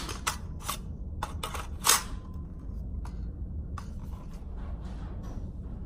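Handling noise from an AR-15 pistol: a series of sharp metallic clicks and clacks, the loudest at the start and about two seconds in, with fainter clicks around four seconds, over a steady low hum.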